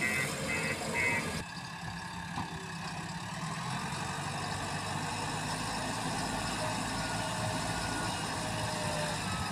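A backhoe loader's reversing alarm beeps three times at an even pace. Then the diesel engines of a JCB 3DX backhoe loader and a tractor run steadily.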